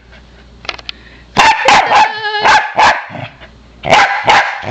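Pembroke Welsh Corgi barking for a frisbee held in front of it. After a quiet start comes a quick run of about five barks, beginning about a second and a half in, then two more near the end.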